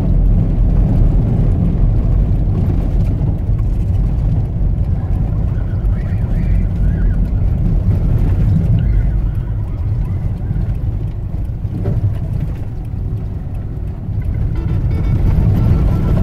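Steady low rumble of a 4x4's engine and tyres on a dirt track, heard from inside the cabin, with music faint beneath it.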